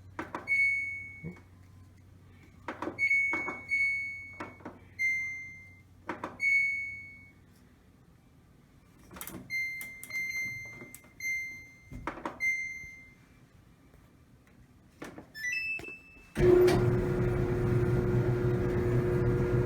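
Samsung DV45H7000GW dryer's control panel beeping as buttons are pressed: about a dozen short single-tone beeps with clicks. Near the end a short rising start chime plays and the dryer's motor and drum start running with a steady hum, quiet and without the squeak it is being fixed for.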